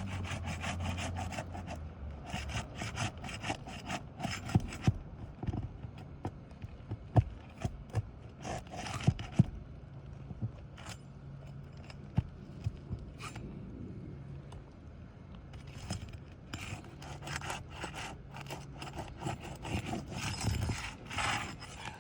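A roofing snake, a shingle-removal tool, worked back and forth under roof shingles to reach the nails, scraping in repeated bursts of strokes. Several sharp clicks and taps come in the middle.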